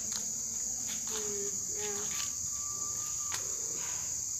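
Night-time crickets chirping in a steady, high-pitched chorus, with a few faint short calls lower down.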